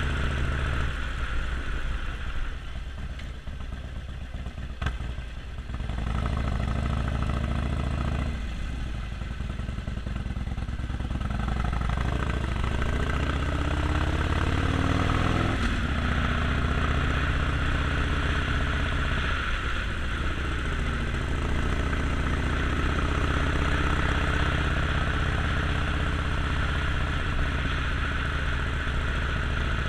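Harley-Davidson Sportster Forty-Eight's air-cooled 1200 cc V-twin running under way. The engine drops back a few seconds in, then climbs in pitch as it pulls up through the revs.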